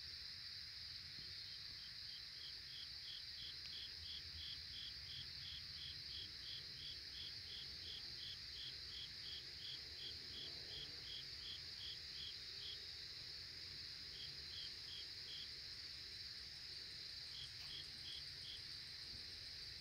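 Faint cricket chirping, about three chirps a second in a long run, then two short bursts after pauses, over a steady high-pitched hiss.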